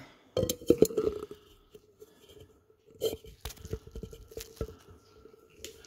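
Handling noise: two short spells of small clicks and knocks, the first just after the start and the second around three seconds in, over a faint steady hum.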